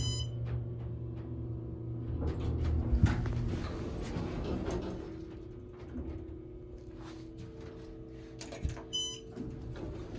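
Otis hydraulic elevator arriving at a floor: a short electronic chime sounds at the start while the pump motor's low hum fades away over the first few seconds, with a sharp thump about three seconds in as the car stops. The doors slide open, and a second short chime sounds near the end.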